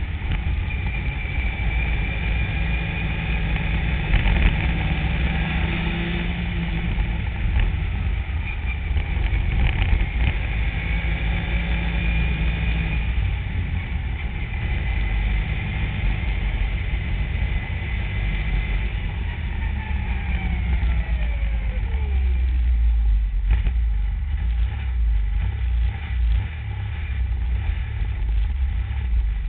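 Yamaha Nytro snowmobile's four-stroke three-cylinder engine running under way, its pitch rising and falling with the throttle. About two-thirds of the way through the engine note falls steadily as the sled slows, followed by a deep low rumble.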